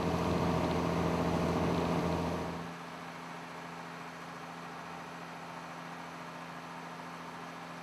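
Fishing boat's engine running steadily. About three seconds in the sound drops to a quieter, steady hum.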